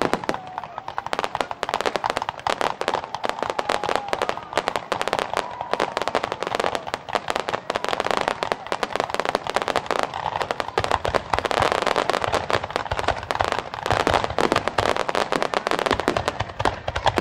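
Aerial fireworks display: a rapid, unbroken barrage of shell bursts and crackling stars, bang after bang with hardly a gap between them.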